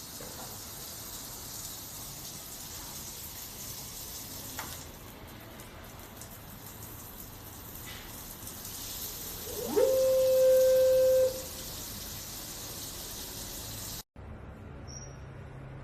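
Water spraying from a rain shower head, a steady hiss that cuts off near the end. Partway through, a loud tone sweeps up in pitch and then holds steady for about a second and a half.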